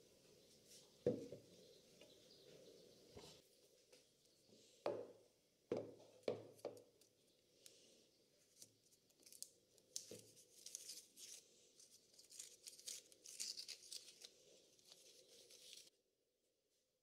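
Masking tape being peeled off a wooden shovel handle, with crackly tearing, mixed with a few knocks of the shovel against the wooden bench; the sound stops abruptly near the end.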